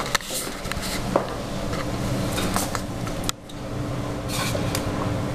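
Handling noise from a handheld camera being moved: rubbing and scraping with scattered light clicks, over a steady low hum.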